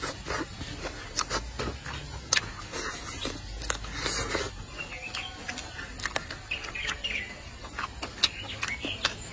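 Close-up eating sounds of chewing a braised duck leg: repeated wet mouth clicks and lip smacks with a few sucking slurps. A bird chirps faintly in the background.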